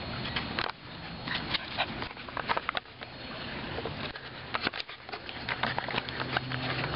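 English springer spaniel making irregular light clicks and taps, several a second at times, with a few louder ones about two and a half and five seconds in.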